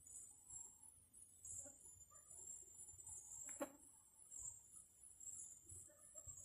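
Night insects chirping in a steady, high-pitched, pulsing chorus, with one sharp click about halfway through.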